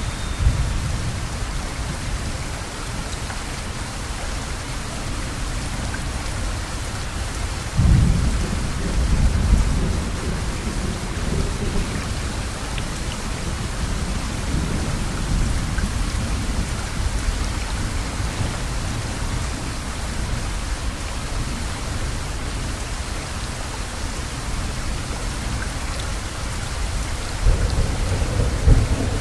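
Heavy rain falling steadily, with a deep low rumble that starts suddenly about eight seconds in and lasts a few seconds, and another rumble near the end.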